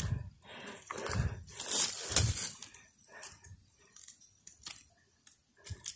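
Fingers tearing and crumbling soft rotten wood and soil: crunchy scraping strokes about once a second for the first three seconds, then only a few small clicks.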